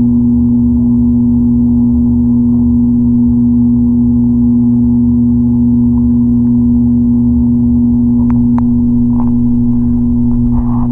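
Steady, loud hum of a reef aquarium's pump heard through the water by an underwater microphone, one fixed low tone with overtones. A few faint clicks come after about eight seconds, and near the end the water is stirred as an arm reaches into the tank.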